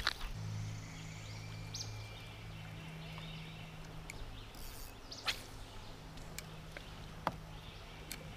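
Quiet riverside ambience: a steady low hum with faint bird chirps, broken by a few sharp clicks about five and seven seconds in.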